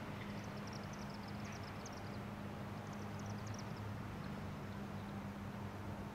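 Outdoor ambience: a steady low hum under a faint hiss, with a small songbird giving two quick runs of high chirps in the first half.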